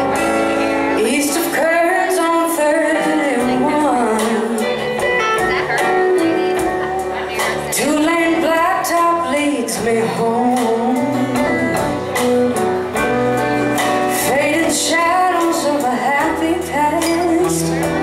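Live band performing a song: a woman sings lead over electric and acoustic guitars, bass and drums.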